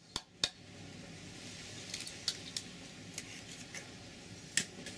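Sharp clicks and taps of eggs being cracked on the rim of a ceramic bowl and the shells handled, a scattered handful of them, the loudest near the end.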